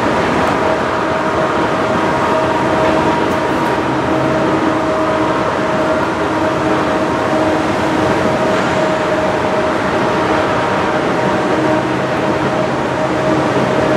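CP coal train's hopper cars rolling steadily past on the rails, a constant roar with a steady, faintly wavering high tone above it.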